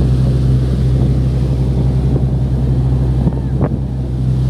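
Motorboat running steadily under way, a continuous low engine drone over rushing wake water and wind on the microphone. The drone dips briefly a little past three seconds in.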